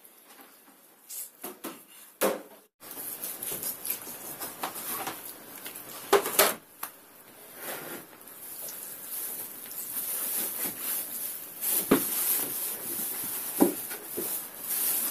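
Kitchen knife cutting raw chicken breast fillet into portions on a plastic cutting board: scattered soft knocks of the blade on the board and wet handling of the meat.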